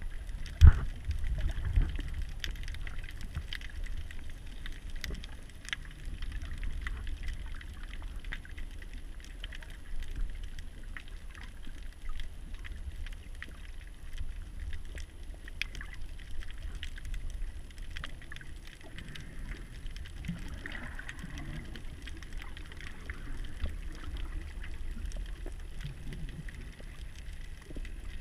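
Underwater ambience picked up by a camera in a waterproof housing: a low steady rumble with scattered faint clicks, and a sharp knock about half a second in followed by a smaller one about a second later.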